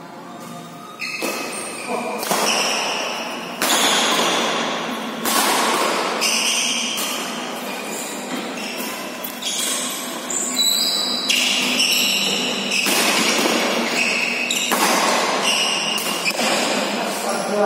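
Badminton rackets striking a shuttlecock again and again in a doubles rally, about a dozen sharp hits spaced one to two seconds apart, echoing in a large indoor hall.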